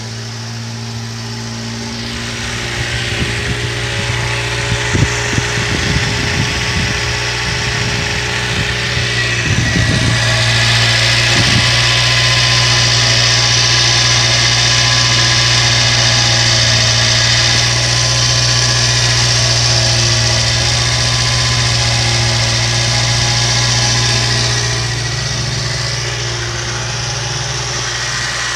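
Subaru's small four-cylinder engine idling steadily after a cold start. It gets louder over the first ten seconds as the microphone comes close to the open engine bay. A few sharp knocks and clatters come between about three and twelve seconds in.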